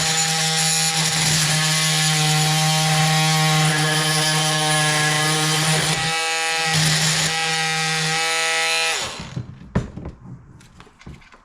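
Oscillating multi-tool running with a blade against a drywall screw set in wood, a steady buzz. The vibration works the screw loose before it is cut through. The tool stops about nine seconds in, followed by a few light clicks and knocks.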